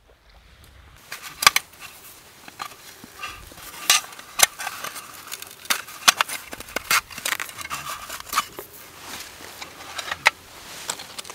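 Irregular sharp clicks and short scraping strokes of stone striking and rubbing against hard stone and metal pieces by hand, some strokes ringing briefly.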